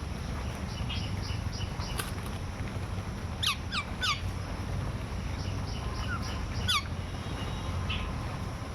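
Birds calling: a few short, clear whistles that drop in pitch, several in quick succession about halfway through and another near the end, with a steady low rumble underneath.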